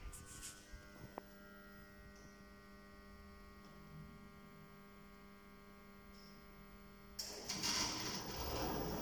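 Steady electrical hum of a 400 kg passenger lift standing with its doors open, with a single click about a second in. About seven seconds in, a louder mechanical noise starts as the lift's door mechanism begins to close the doors.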